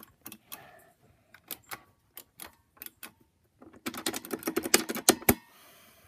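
Elevator push buttons on an Innovation Industries sample panel clicking as they are pressed: scattered single clicks, then a rapid run of many clicks nearly four seconds in, ending in one sharp, loud click.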